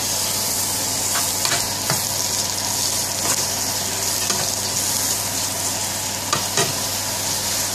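Chicken hearts and onions sizzling in oil in a non-stick frying pan while being stirred with a metal spoon. The steady hiss of the frying is broken by occasional short scrapes and taps of the spoon against the pan.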